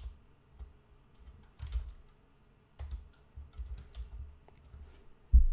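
Computer keyboard typing: a few scattered keystrokes, with a louder dull thump near the end.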